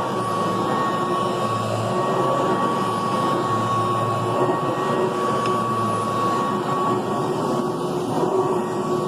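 Kirby Classic III upright vacuum cleaner running steadily, a high motor whine held over the rush of air.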